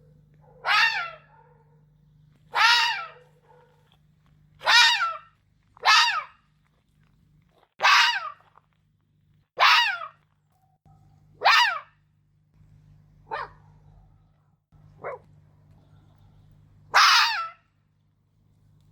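Red fox barking: a series of about ten single, high, hoarse barks, each dropping in pitch, roughly one every two seconds, with two fainter ones in the second half.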